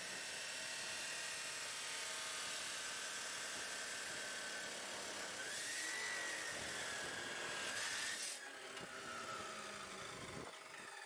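Abrasive chop saw cutting through a galvanised steel pipe: a steady grinding hiss with a thin whine. The grinding stops abruptly about eight seconds in as the cut finishes, leaving a fainter whine that fades out.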